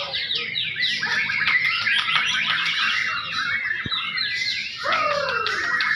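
A white-rumped shama (murai batu) singing a fast, varied song of rapid whistled phrases, sweeps and trills, pausing briefly past the middle and then starting again with a lower falling note.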